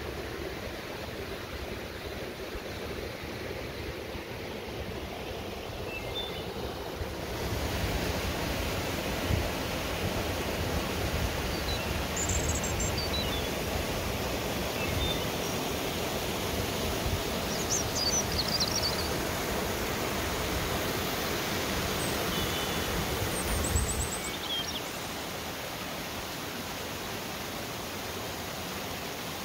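Creek water rushing over small waterfalls and cascades, a steady rush that grows louder and fuller from about seven seconds in until about twenty-four seconds. A few faint high chirps sound over it.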